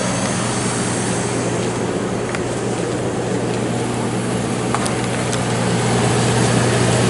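1972 HeatController 9,000 BTU window air conditioner running with its Tecumseh AK compressor and fan on: a steady low hum under an even rush of air, with a few faint ticks. It is a smooth runner, judged to hold a full refrigerant charge.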